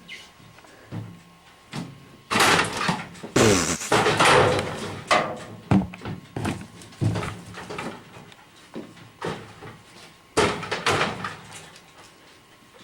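Tires being dumped off the back of a military 7-ton cargo truck: a run of thuds and bangs, loudest and densest from about two to five seconds in, with scattered knocks after.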